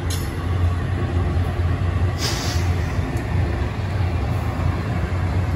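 Double-stack intermodal freight train rolling past, its container well cars giving a steady low rumble of wheels on the rails, with a brief hiss about two seconds in.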